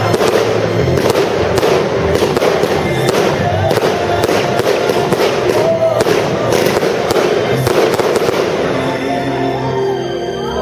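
Fireworks display: a rapid barrage of bangs and crackling over music, thinning out about nine seconds in while the music carries on.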